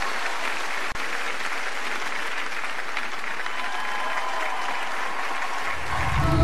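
Studio audience applauding steadily, as the music for the next song swells in near the end.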